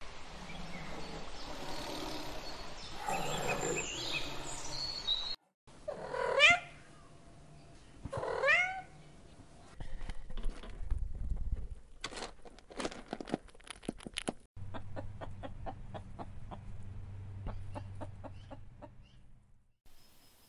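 Two drawn-out cat meows about two seconds apart, then a hamster nibbling leaves in a rapid run of crisp clicks, within a sequence of short animal clips.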